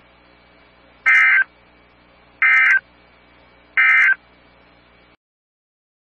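NOAA Weather Radio's end-of-message signal: three short bursts of EAS/SAME digital data tones, just over a second apart, marking the end of the warning. Faint radio hiss runs beneath and cuts off suddenly about five seconds in.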